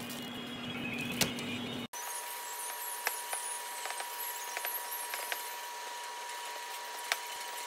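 Kitchen room noise: a steady high electrical whine with a few light clicks and knocks, one sharp knock about a second in.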